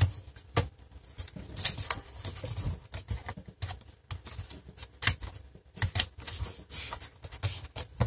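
Removable battery of an HP Pavilion 15 laptop being pressed into its bay and latched: a scattered series of sharp plastic clicks and knocks.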